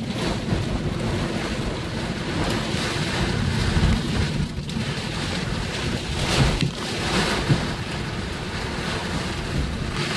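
Severe thunderstorm wind and rain buffeting a car, heard from inside the cabin. It is a dense, steady rush with a heavy low rumble that swells louder in gusts a few times.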